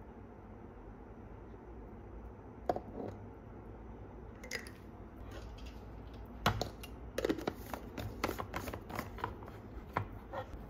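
Clicks and light knocks of a glass blender jar being handled and its plastic blade base fitted and screwed on, a few at first, then a quick run of clicks in the second half, over a low steady hum.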